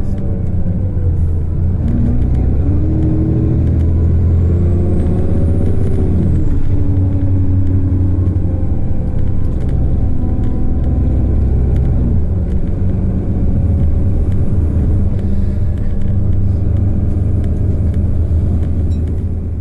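Cummins ISB 6.7 diesel engine and ZF Ecolife six-speed automatic of an Alexander Dennis Enviro400 double-decker bus running under way. The engine note climbs for a few seconds and drops sharply about six seconds in, as at a gear change, with a faint high whine rising and falling over it. It then runs on steadily.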